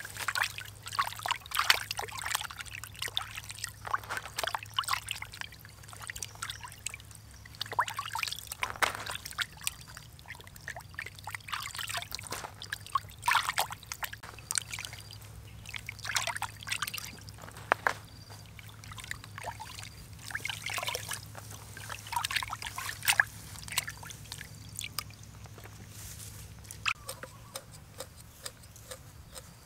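Water splashing and sloshing in a basin as hands rub and turn pieces of raw fish, washing them in uneven bursts of splashes and drips.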